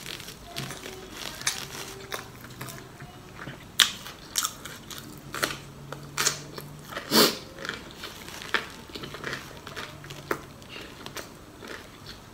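Close-up mouth sounds of chewing crispy deep-fried pork larb balls coated in panko: wet smacks and small crunches throughout, with the loudest crunches about four and seven seconds in.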